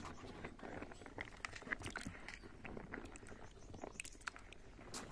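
Hands scrubbing and stirring small wild tubers in a bucket of water: splashing and sloshing, with the tubers clicking and rubbing against each other in an irregular patter.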